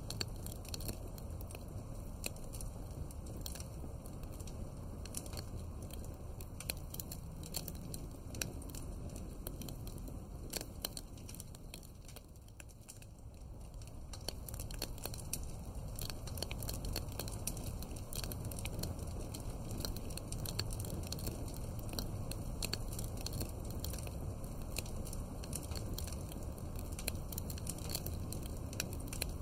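Wood fire crackling, with many small sharp pops over a low, steady rumble. It briefly turns quieter about halfway through, then comes back up.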